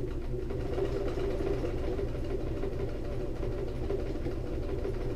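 Household electric sewing machine running at a steady speed, stitching a seam through fabric, with a rapid, even needle rhythm.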